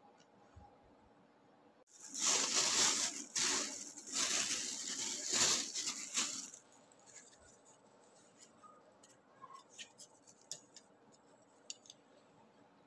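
Paper packaging crinkling and tearing for about four seconds, then light clicks and taps as wooden spoons and forks are set down on a paper napkin.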